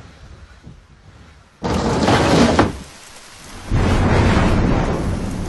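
Thunderstorm: a faint low rumble, then a sudden loud clap of thunder about a second and a half in, and a second long peal of thunder starting near the end, over rain.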